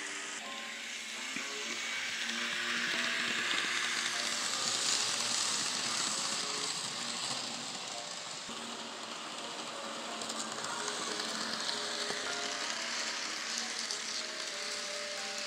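N scale model trains running past: a steady hissing whir of small wheels on the rails and the locomotive motor, swelling a few seconds in.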